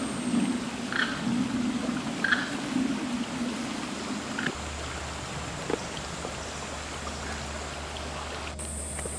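Rainforest ambience: a steady rushing background with a few short animal calls in the first half. A low hum comes in about halfway.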